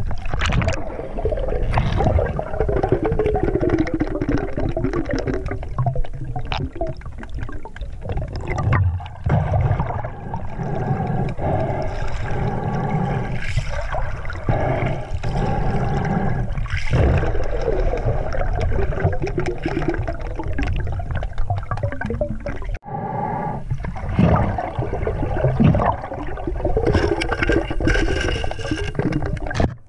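Muffled underwater sound of river water heard through a submerged camera: a steady rushing and gurgling of the current, with occasional knocks, cutting out for an instant about two-thirds of the way through.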